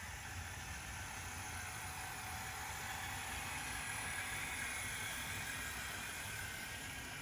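LEGO model train of the Union Pacific 8080 turbine locomotive whirring along plastic LEGO track, its electric motors and wheels running steadily, growing louder as it passes close and then easing off.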